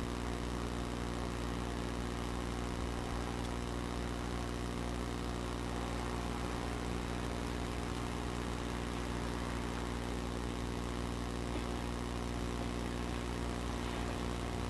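Steady hum of an electric locomotive approaching from far down the line, growing slightly louder near the end.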